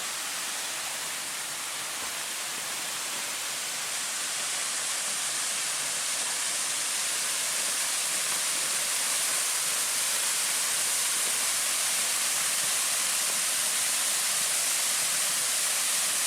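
Steady rush of falling and flowing water from a waterfall, growing slightly louder a few seconds in.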